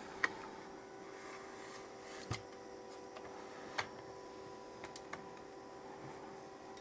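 Faint, steady electrical hum made of several tones, with about five light, sharp clicks and taps scattered through it.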